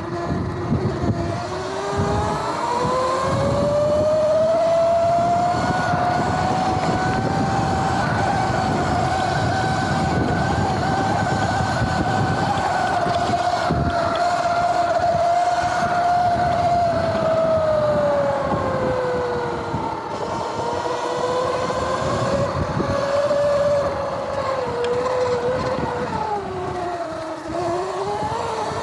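Sur-Ron electric dirt bike under way: the motor and 420 chain primary drive whine, climbing in pitch as it accelerates over the first few seconds, holding steady, then falling and wavering as it slows, over wind and tyre noise. The chain conversion kit, fitted in place of the belt drive, makes the bike louder and noisier.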